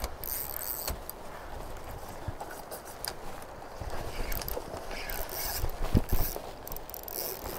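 Spinning reel being cranked and handled while a hooked Chinook salmon pulls on light tackle, over a steady rush of river water. A couple of handling knocks come about six seconds in.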